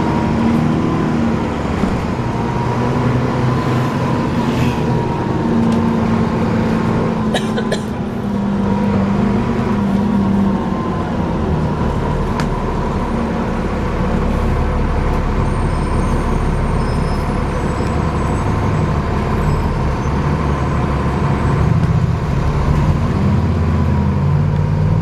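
Alexander Dennis Enviro400 double-decker bus heard from inside while driving, its engine running under a steady high-pitched whirring that keeps on throughout. There are a few sharp clicks about seven to eight seconds in.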